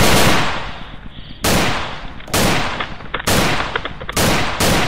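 A run of rapid gunfire dies away at the start. Then come five single gunshots about a second apart, the last two closer together, each with a fading echo.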